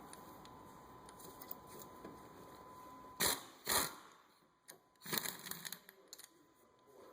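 Metal tools and brake parts being handled during front brake work: two sharp knocks about half a second apart roughly three seconds in, then a short rattle and a few light clicks.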